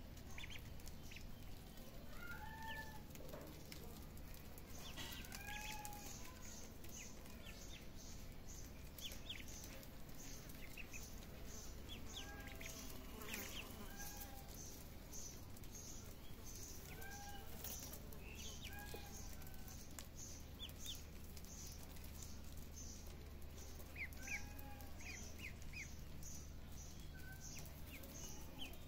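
Ducklings peeping: quick high peeps mixed with short arching chirps that repeat every second or two, over a faint regular high pulsing.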